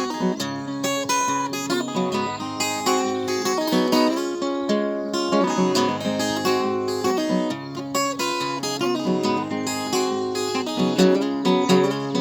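Acoustic guitar playing a song's intro: a steady, continuous run of picked notes.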